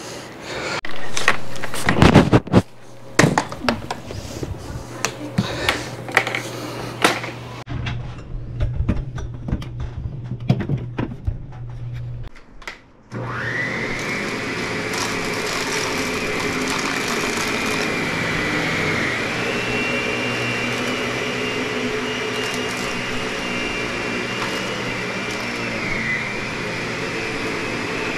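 Clicks and knocks of handling over a low hum, then about halfway through a vacuum cleaner motor switches on. It winds up to a high whine within a second and runs steadily, its pitch dipping briefly twice.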